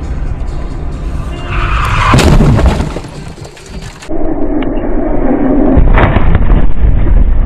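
Car collision heard from inside the car: a heavy low rumble of the car at speed, with a burst of crashing noise about two seconds in. A longer, louder stretch of crashing and banging impacts follows from about four seconds in.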